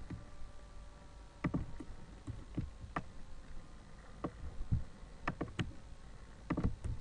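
Computer mouse clicks, about ten sharp irregular clicks with a soft low knock under each, over faint room noise.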